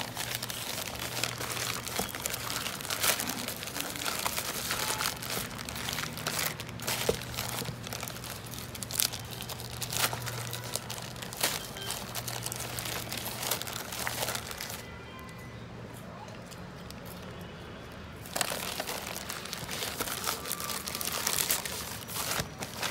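Plastic courier mailer bag crinkling and tearing as hands rip it open, in dense irregular crackles. It goes quiet for about three seconds past the middle, then crinkles again as the contents are pulled out.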